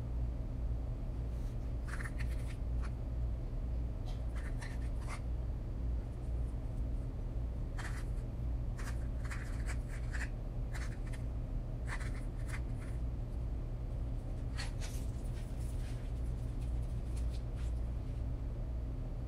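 Short, scattered scratchy rustles and taps of hands working pie crust and chocolate chips on parchment paper, over a steady low hum.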